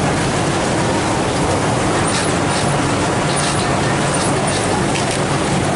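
Steady din of a garment sewing workshop: industrial sewing machines running together under a constant low hum, with a few light clicks about two to five seconds in.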